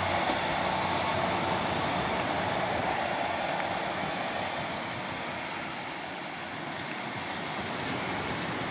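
Diesel multiple-unit passenger train running away along the track, its rumble slowly fading into the distance.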